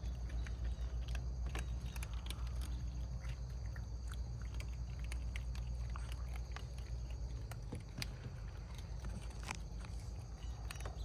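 Several cats and kittens crunching dry cat food, an irregular run of small crisp crunches with a low steady rumble beneath.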